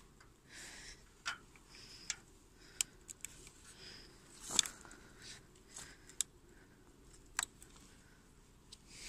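Handling noise in the dark: scattered small clicks and short rustles at irregular intervals, the loudest about four and a half seconds in.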